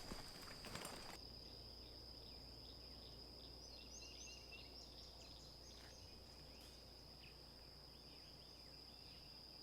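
Quiet outdoor ambience: a steady high-pitched insect drone with scattered bird chirps, after a brief rustling clatter that cuts off about a second in.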